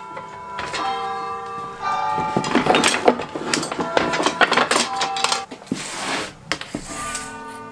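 Thin wooden strips clattering and knocking against each other and the bench as a bundle is handled and laid down. Many of the knocks ring briefly with a clear pitched tone, like wooden bars.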